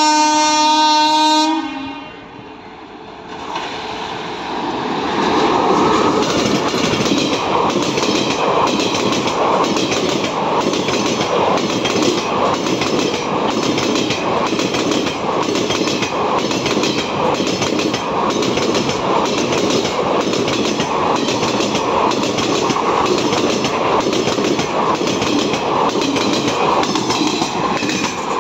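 An electric locomotive's horn sounds for about two seconds. Then a WAP4-hauled express passes at speed, its coach wheels clattering over the wing rail of a crossing in a steady rhythm of about two knocks a second.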